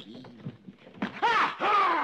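Men laughing, starting about a second in: a loud, high-pitched, drawn-out laugh that wavers in pitch.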